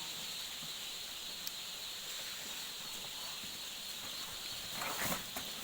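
A dense chorus of many Khaki Campbell ducklings peeping. A short burst of rustling and knocking comes near the end.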